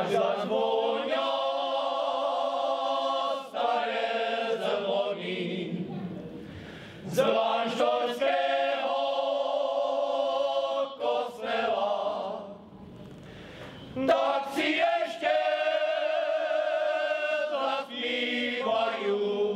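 Male choir singing a folk song unaccompanied, in several voices in harmony. It comes in three long held phrases with short breaks for breath between them.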